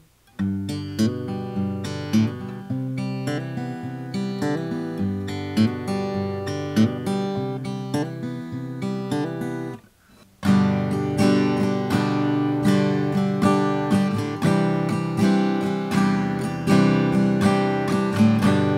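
Acoustic guitar picked note by note, then after a short break about ten seconds in, played louder with fuller chords, as heard through a budget USB condenser microphone.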